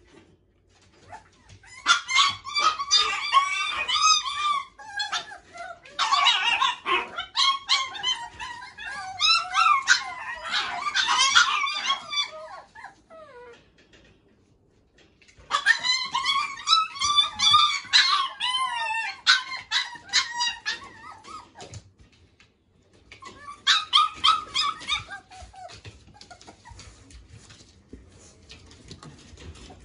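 Shiba Inu puppies yipping and whining in high-pitched, wavering cries, in three bouts broken by short pauses, trailing off into fainter whimpers near the end. It is an excited greeting for their returning owner.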